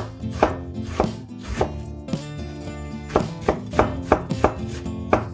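Knife chopping on a cutting board: sharp, uneven strokes, about two a second, over steady background music.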